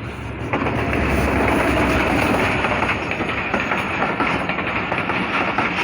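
A passenger express train, the Millat Express, passing at speed. Its wheels make a steady rolling noise on the rails with rapid clicks over the rail joints, starting about half a second in.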